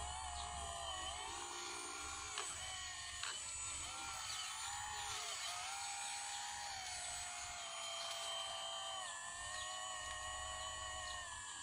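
Hydraulic pump of a radio-controlled Kobelco SK200 model excavator whining as the boom and arm work, its pitch rising and falling with the load. Two sharp clicks in the first few seconds.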